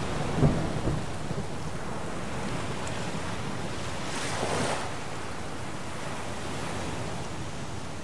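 Thunderstorm with steady heavy rain: a low rumble of thunder peaks about half a second in, and a rushing surge of wind or surf swells and fades around four to five seconds in.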